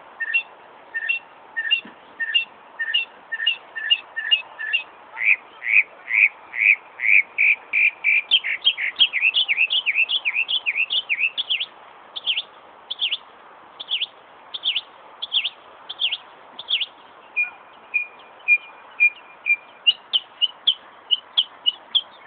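Northern mockingbird singing a car-alarm imitation: each short phrase is repeated many times before it switches to the next. First come paired chirps about twice a second, then rising sweeps, a fast run of down-slurred notes, slower single notes, a brief string of flat notes, and a quick run again near the end.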